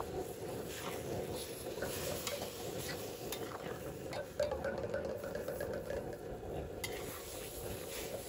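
Mixed vegetables stir-fried in a black wok, sizzling as metal tongs toss them, with frequent sharp clicks and scrapes of the tongs against the pan over a steady low rush.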